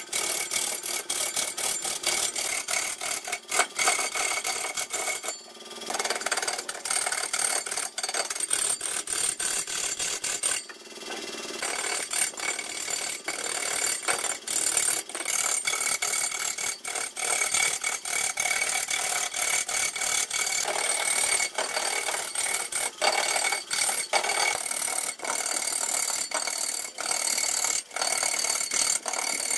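Long-handled turning tool cutting into a large red wood log spinning on a lathe: a dense, continuous run of rapid ticks and scraping, broken off twice briefly, about five and eleven seconds in.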